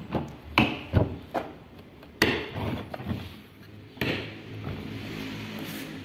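Hard plastic knocks and clicks as the head of a Truper ASP-06 wet/dry shop vacuum is seated onto its canister and pressed down to snap the side latches shut: a few quick clicks in the first second and a half, then a sharper knock about two seconds in and another about four seconds in.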